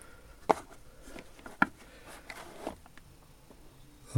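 A few light clicks and taps of small metal tools being handled and set down, the two sharpest about half a second and a second and a half in.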